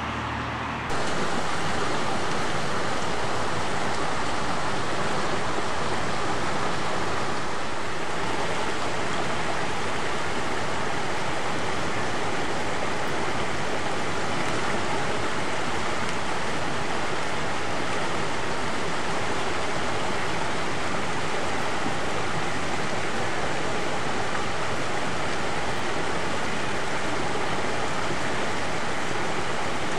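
Water rushing and splashing down the stepped pools of a stone fish ladder: a steady, loud rush with no break, starting abruptly about a second in.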